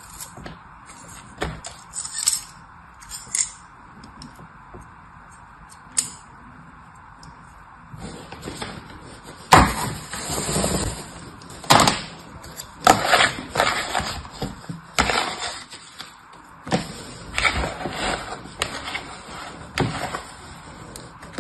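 Kinetic sand being cut and scraped with a small knife, with short scattered scrapes, then crushed and crumbled by hand in a plastic tray. The crunching strokes come roughly once a second and are louder in the second half.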